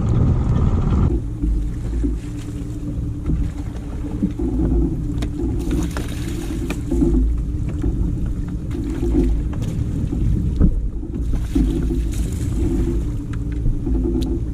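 A boat's motor running steadily with a low hum, after a louder rushing noise in the first second; a few sharp knocks against the hull or gear.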